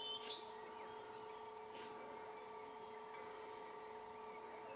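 A cricket chirping steadily, short high chirps about twice a second, with a brief bird chirp right at the start.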